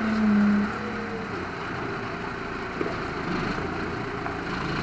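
Diesel engine of a rough-terrain telehandler forklift running as it drives slowly with a load. The engine pitch rises briefly at the start, then it runs steadily.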